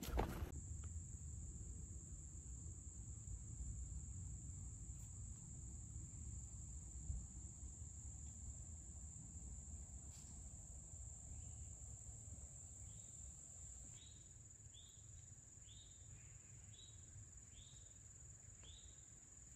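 Woodland ambience: a steady, high-pitched insect drone, with a bird calling in short falling chirps about once a second through the second half.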